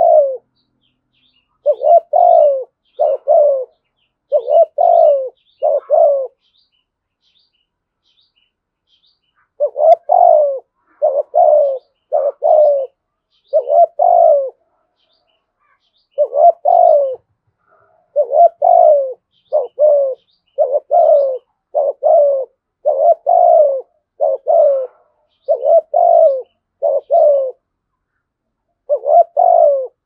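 Spotted dove cooing: runs of short, loud coo notes, each under a second, a silent pause of about three seconds a few seconds in, then a long unbroken run. Faint high chirps of small birds sound over it.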